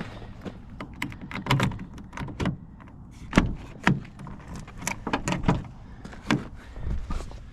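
A string of irregular knocks and clunks, about a dozen, with light rattling between them.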